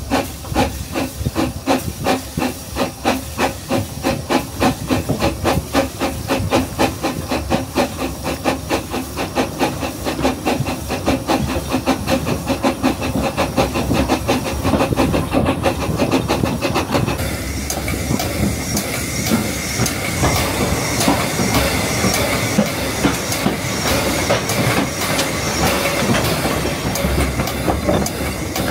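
Narrow-gauge steam locomotive running with a steady, rhythmic chuff of exhaust beats and a hiss of steam. After about seventeen seconds the beats fade and a steadier hiss with the rattle of wheels on rails takes over as the train slows.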